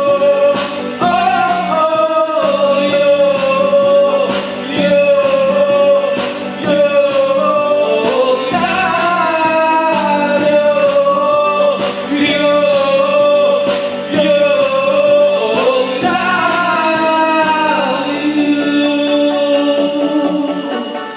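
A man singing through a handheld karaoke microphone over a backing track, holding long notes and sliding between pitches. Near the end his voice stops and the backing music carries on alone.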